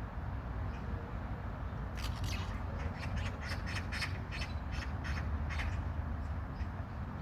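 A bird giving a rapid run of short, harsh calls, starting about two seconds in and stopping about a second before the end, over a steady low background rumble.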